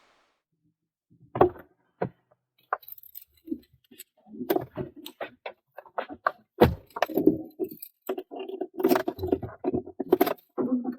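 A series of sharp clicks, clinks and knocks, like small hard objects being handled, getting busier after about four seconds.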